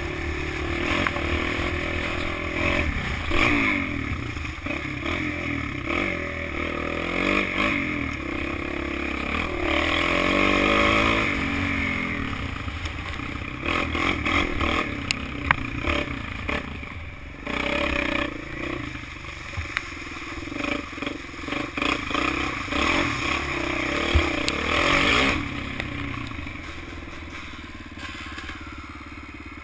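Kawasaki KFX 400 quad's single-cylinder four-stroke engine revving up and down as it is ridden over a rough dirt track, with clatter and sharp knocks from the machine over bumps. The engine eases off and the sound drops in the last few seconds as the quad slows.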